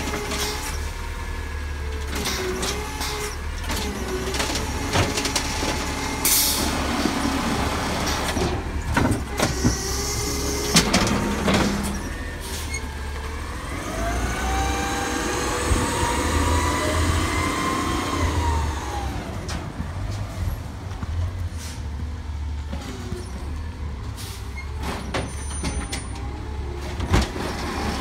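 Automated side-loader garbage truck running on natural gas, its engine running steadily while the hydraulic arm lifts, shakes and sets down a wheeled cart with repeated knocks and bangs. A short air-brake hiss comes about six seconds in, and in the middle a whine rises and then falls in pitch.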